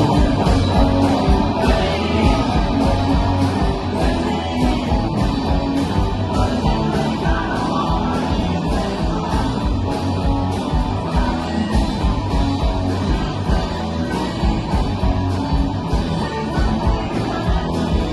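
Rock music from a full band: a steady, driving drum beat under electric guitar and bass.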